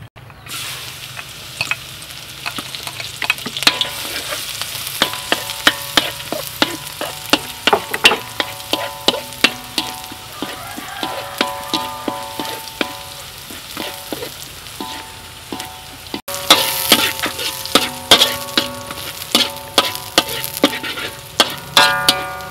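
Minced garlic and chili sizzling in hot oil in a steel wok, starting about half a second in. A metal spatula scrapes and clicks against the pan again and again as they are stirred.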